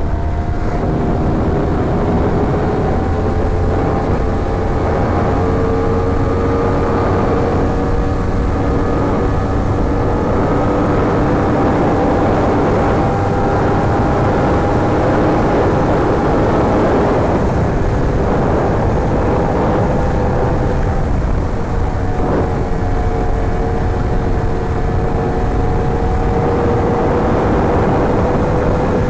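Yamaha R1's inline-four engine running under way, its note holding steady and slowly rising in pitch, easing off briefly twice in the second half.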